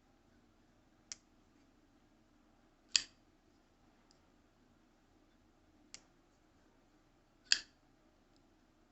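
QSP Penguin folding knife with a D2 blade being flipped open and shut: four sharp clicks, the two loudest, about 3 and 7.5 seconds in, snapping with a brief metallic ring.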